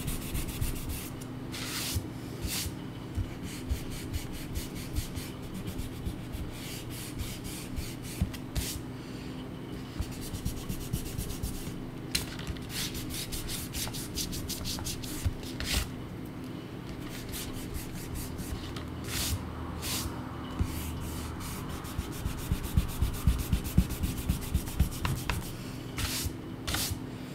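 A hand and a kneadable eraser rubbing over drawing paper in quick, uneven strokes, lifting the pencil lines from an inked drawing.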